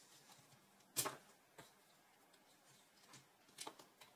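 Faint clicks of plastic LEGO Technic pieces being handled and pressed together. There is one sharper click about a second in and a few softer ones near the end.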